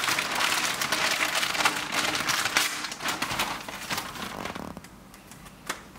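Clear plastic bag crinkling and rustling as hands work a small circuit board out of it. The crinkling dies down about four and a half seconds in, followed by a single light tap near the end.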